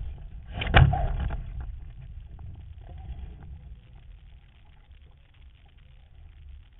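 A loud knock about a second in that trails off over the next second, over a steady low rumble.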